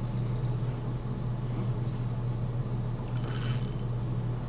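A steady low hum, with a brief hiss about three seconds in.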